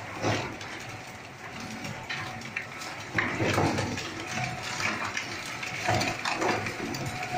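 Two-shaft plastic shredder with a 20 HP motor chewing polyethylene drums: irregular crunching and cracking bursts, the loudest about three and six seconds in, over the machine's steady hum.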